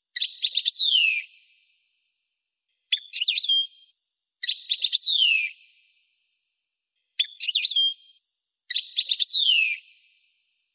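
European goldfinch singing in five short phrases of about a second each, separated by silent gaps. Each phrase is a quick twittering run of high notes ending in a falling whistle.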